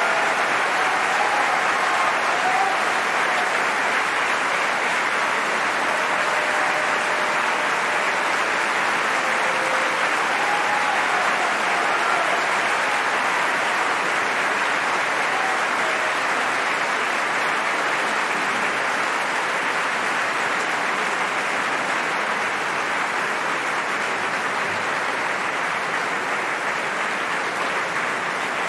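A large theatre audience applauding steadily, with a few faint voices calling out over the clapping in the first half; the applause eases slightly near the end.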